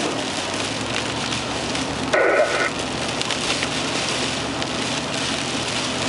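Steady hiss of heavy rain. About two seconds in, a brief tone lasting about half a second rises above it.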